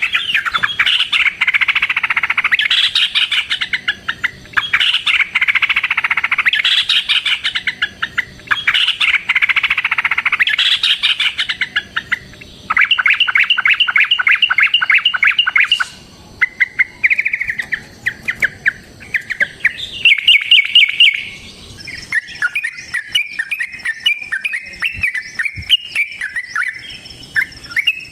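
Yellow-vented bulbul (trucukan) singing its agitated fighting song: long runs of rapid chattering notes, a few seconds each with short breaks. After about twenty seconds it changes to a looser, wavering warble.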